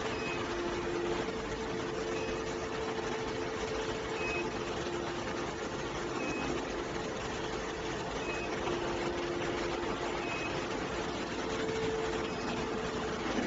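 Steady machine hum carrying two low steady tones, with a short high beep repeating about every two seconds.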